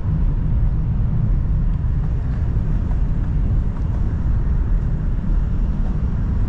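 Steady low rumble inside the carriage of the Whoosh high-speed train cruising at about 348 km/h.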